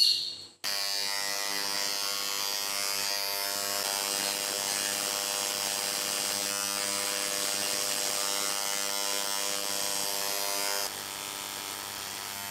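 Handheld electric engraving pen buzzing steadily as its tip marks numbers into a metal connecting-rod cap. The buzz gets a little quieter near the end.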